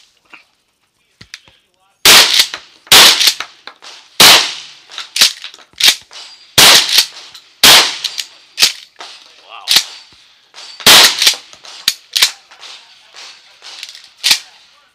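Shotgun firing a string of loud blasts at steel targets, starting about two seconds in, about half a dozen shots roughly a second apart with short pauses, and quieter clacks between them as shells are loaded.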